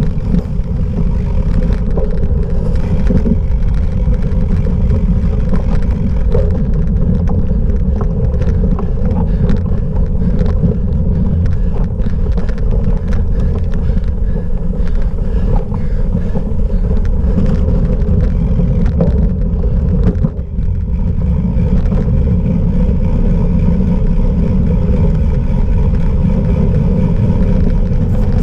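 Cyclocross bike ridden hard off-road: loud rumble of tyres and wind on the microphone, with frequent rattles and clicks from the bike over rough ground.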